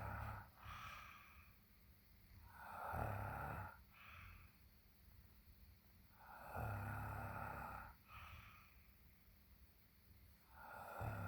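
Snoring in a steady rhythm: a long snore about every four seconds, each followed by a shorter, softer breath out.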